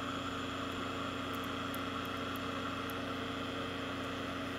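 Steady machine hum with a low, even buzz, like a fan or other running equipment.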